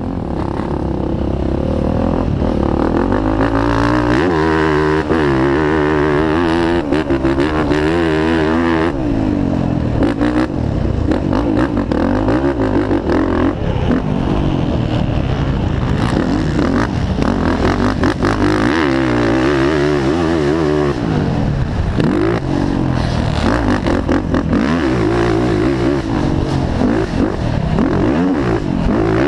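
Motocross racing ATV (quad) engine heard close up from the machine, revving hard through the gears on a lap: the pitch climbs, drops sharply at each shift or roll-off for a turn, and climbs again, over and over.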